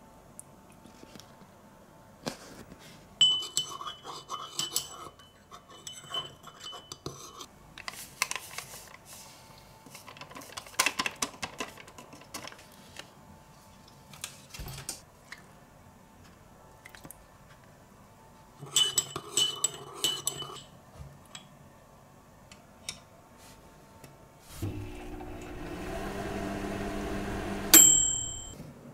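A metal spoon stirring in a ceramic mug, clinking against its sides in two spells, with scattered knocks in between. Near the end a microwave oven runs with a steady hum for about four seconds and finishes with a short high beep.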